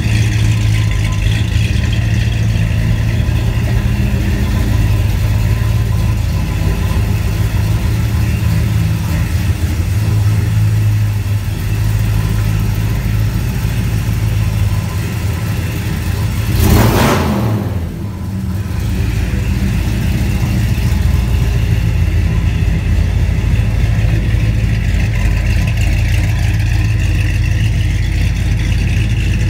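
454 big-block Chevy V8 running steadily at idle through Full Boar FB2540 chambered mufflers, a Flowmaster 40 copy. A short rush of noise a little past halfway.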